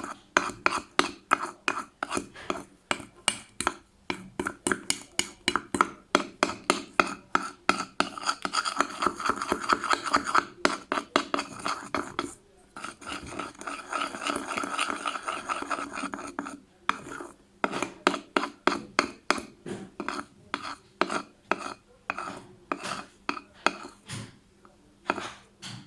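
Teaspoon scraping and clinking round a bowl in fast repeated strokes, about three or four a second, as a gritty toothpaste-and-salt slime mixture is stirred to make it thicken. The strokes pause briefly a couple of times and run into longer continuous rasping in places.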